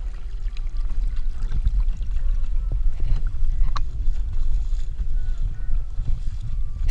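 Kayak moving over choppy water, water splashing along the hull, with a steady low rumble of wind on the action camera's microphone.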